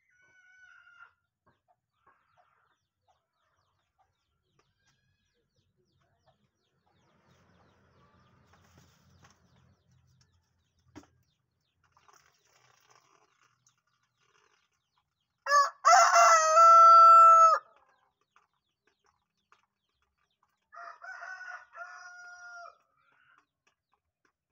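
Rooster crowing once, loud, about two-thirds of the way in: a call of about two seconds ending on a long held note. A few seconds later comes a second, much fainter crow of the same shape.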